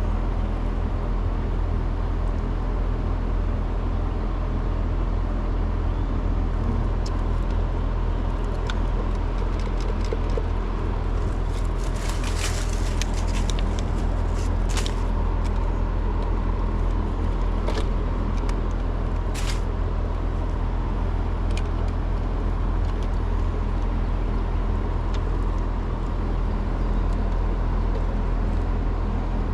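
Trane two-stage air conditioner's outdoor unit running with a steady, even electrical hum, with a few short clicks and knocks in the middle.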